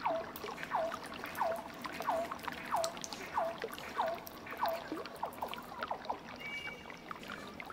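Wet fingers rubbing over soft, damp modelling clay, squeaking with each smoothing stroke: about ten short falling squeaks in a steady rhythm, with small wet, sticky clicks. The squeaks stop about five seconds in, leaving quieter wet rubbing.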